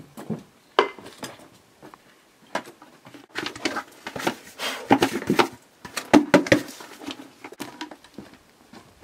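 Footsteps on wooden porch boards with irregular knocking and clattering as a bucket is picked up and handled by its handle, busiest in the middle.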